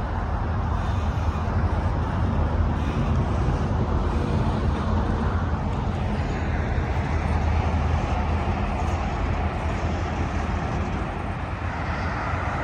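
Freight train of autorack cars rolling past on the rails: a steady low noise of wheels and car bodies moving along the track.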